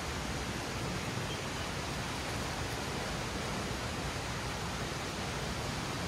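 Steady rushing of a mountain river, an even hiss of flowing water that does not change.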